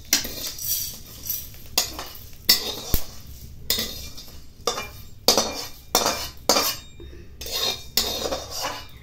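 Metal spatula scraping dry-roasted parboiled rice out of a tilted karahi into a small metal bowl: a rapid, irregular series of metal-on-metal scrapes and clinks.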